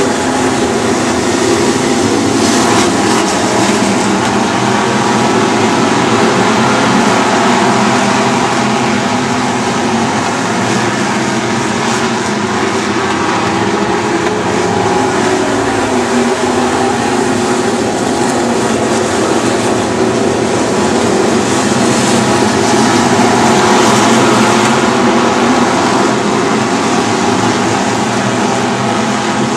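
Several Super Stock dirt-track race cars' engines running on the oval, a loud, steady drone of many engines together.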